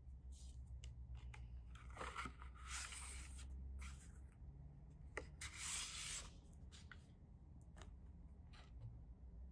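Card stock rustling and sliding as invitation cards are pulled out of a paper pocket sleeve. There are two longer rubbing swishes, about two seconds in and again around five and a half seconds in, with light taps and clicks of the cards and acrylic sheet between them.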